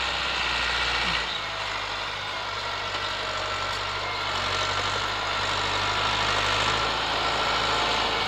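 Massey Ferguson 385 tractor's four-cylinder diesel engine running steadily under load as it pulls a 13-tine cultivator through the soil in first gear; the engine note shifts about a second in.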